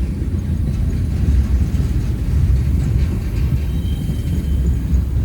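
Freight train rolling past close by: a steady, loud low rumble of wheels on the rails.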